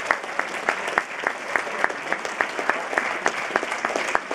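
Audience applauding, with one person clapping close by, about four sharp claps a second, over the haze of many hands.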